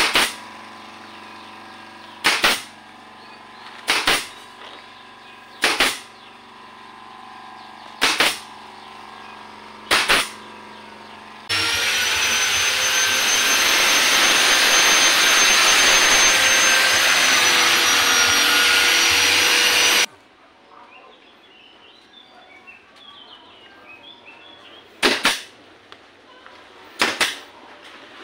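Pneumatic brad nailer firing six sharp shots about two seconds apart into plywood, over a steady low hum. Then a handheld angle grinder runs loudly and steadily with a high whine for about eight seconds and cuts off abruptly. Two more sharp shots come near the end.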